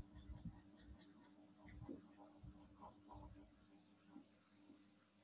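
Crickets trilling steadily, high-pitched, under the faint scratching of a marker writing on a whiteboard.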